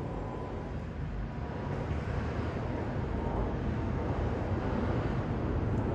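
Twin-engine widebody jet airliner passing overhead on its way in to land, a low rumble from its engines that slowly grows louder.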